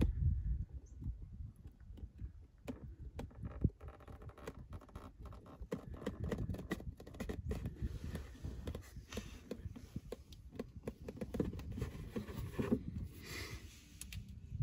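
Motor oil poured in a thin stream from a plastic quart bottle into a UTV engine's oil filler, with scattered small clicks and scrapes from handling the bottle over a low rumble.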